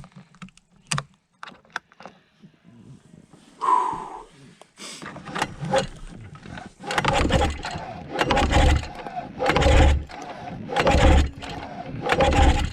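Recoil pull-starter being yanked on a 1997 Yamaha Vmax SX 700 three-cylinder two-stroke snowmobile engine on full choke: about five hard pulls a little over a second apart in the second half, each one turning the engine over without it catching. A few light clicks and knocks come before the pulls.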